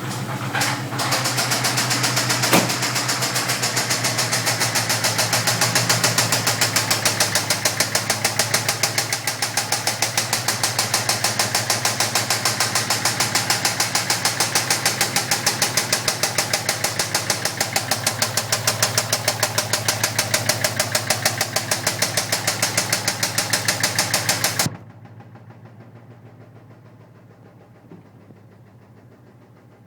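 Ford Coyote 5.0 V8 crate engine running with a loud, rapid, even knock, which the owner traces to the passenger-side cylinder head; it set in after one wide-open-throttle pass on the freshly broken-in engine. The sound cuts off suddenly about 25 seconds in, leaving only a faint background.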